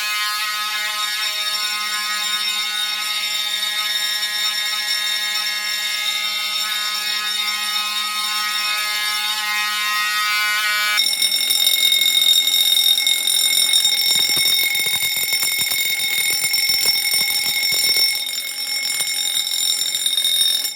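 Fire alarm bell, a Wheelock 6-inch bell, ringing loudly and continuously together with the harsh buzz of a Wheelock 34 mechanical horn (Ademco rebrand). The horn cuts out about halfway through, leaving the bell ringing alone. The bell then stops abruptly at the end.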